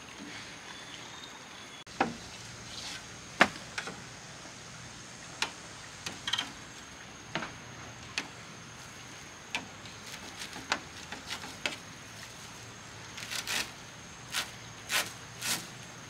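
Irregular sharp knocks and clacks of hard building material being worked during roof repair, the loudest a few seconds in. Near the end comes a quick run of three knocks about half a second apart.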